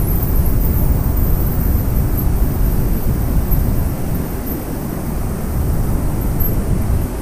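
Steady low rumble of outdoor city noise, with no distinct events standing out.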